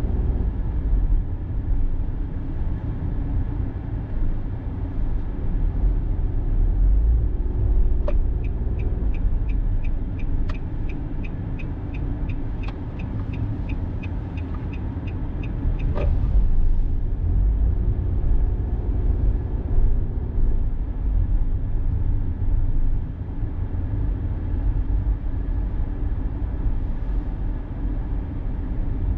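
A car driving along an expressway, with a steady low road and engine rumble. From about 8 to 16 seconds in, the turn signal ticks evenly, about three ticks a second.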